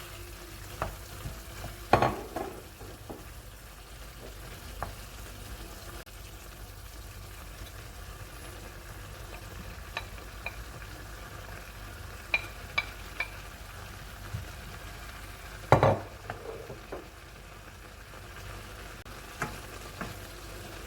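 Chicken adobo with mushrooms sizzling steadily in a pan of soy-sauce liquid, with a utensil stirring and knocking against the pan now and then. The loudest knocks come about two seconds in and again near the end, with a few lighter clicks in between.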